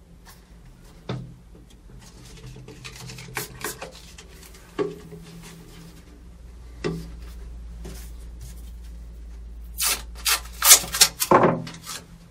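Hand work on a wooden subwoofer box while a port is glued in: a few scattered knocks and rubbing, then a quick run of loud rubbing and scraping strokes about ten seconds in.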